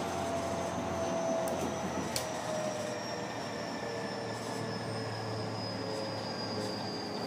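A Tobu 60000 series electric train heard from inside a motor car while running. The whine of its motors and inverter falls slowly and steadily in pitch as the train slows, over the running noise of the wheels on the rails. On this car the motor sound comes with an extra 'fuu' whoosh under acceleration and braking, which the recordist says is not heard on other cars of the series.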